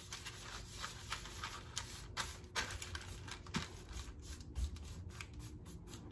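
Parchment paper crinkling and rustling under hands pressing flat a sticky dough beneath it on a baking sheet: faint, irregular little crackles and ticks.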